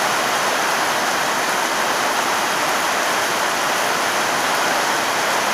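Rain falling steadily, a loud even hiss with no breaks.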